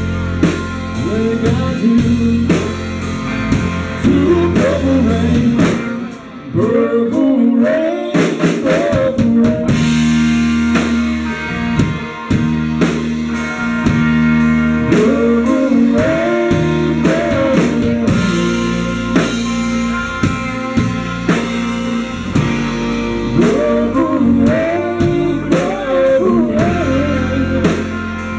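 Live band playing a rock song on electric guitar, bass guitar, drum kit and fiddle, with a woman singing into a microphone.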